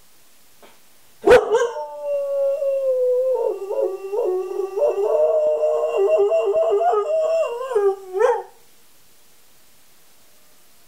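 A greyhound rooing: it starts sharply about a second in with a long held note that slides slightly down, then breaks into a wavering, warbling howl. It ends with a short rising note just before it stops, about eight seconds in.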